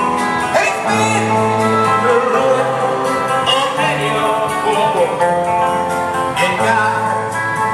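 Music: a song with a singing voice over guitar and a bass line of held notes that change about once a second.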